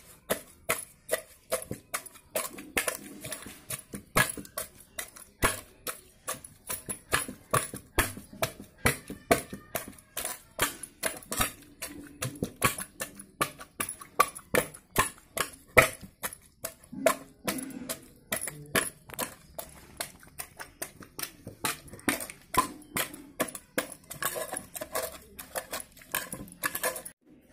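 A steel tumbler knocking and clinking against the inside of an aluminium pot as grapes are pressed and crushed for juice: rapid, irregular metallic clicks, several a second.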